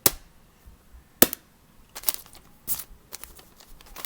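Sharp snapping clicks from fidget toys being handled: two loud snaps about a second apart, then several softer clicks.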